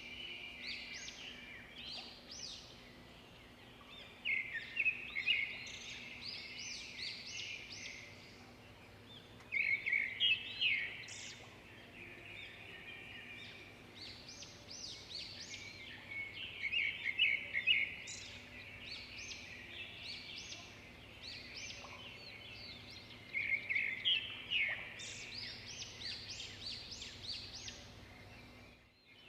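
Songbirds singing: phrases of rapid, high, chirping notes that come louder every six or seven seconds, over a faint steady low hum. The sound drops out briefly near the end.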